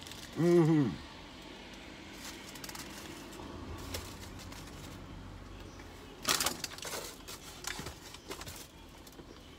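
A man hums a short 'mm' of approval through a mouthful, then eats a McDonald's burger, with chewing and the crinkle of its paper wrapper; a brief burst of rustling comes about six seconds in as he bites again.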